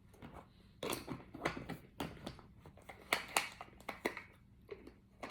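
Irregular light clicks and taps, about a dozen spread over several seconds, from close-up handling or mouth sounds rather than any steady source.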